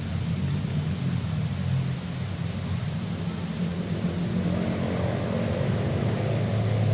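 An engine running steadily with a low hum whose pitch wavers slightly.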